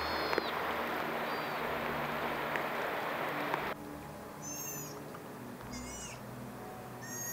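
Sea otters calling to each other with short, high-pitched squeals that arch up and down in pitch: a few faint ones at first, then clearer ones about once a second in the second half. A loud steady hiss lies under the first half and cuts off sharply partway through.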